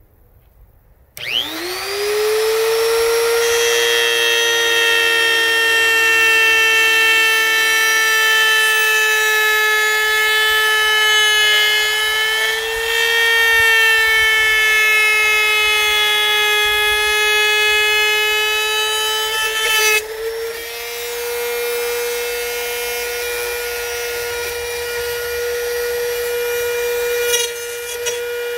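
Compact trim router starting up about a second in, its whine rising quickly to full speed, then running at a steady high whine while its V-bit cuts along an aluminium T-slot extrusion. About two-thirds of the way through the sound drops in level and changes slightly, with the router still running.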